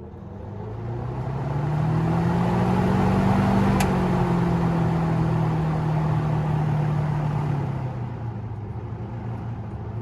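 Vintage Westinghouse box fan's freshly oiled motor starting up in reverse: its hum and the rush of air from the blades rise in pitch over about two seconds as it spins up, then slowly drop and fade as it winds down, with a sharp click about four seconds in.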